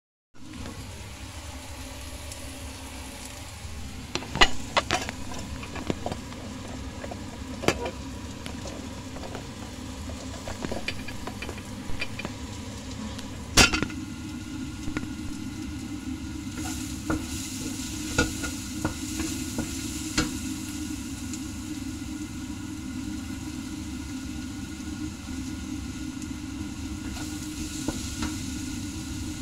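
Food frying in a stainless steel wok, a steady sizzle, with a wooden utensil stirring and knocking against the pan every few seconds, the loudest knock about halfway through. A steady low hum runs underneath.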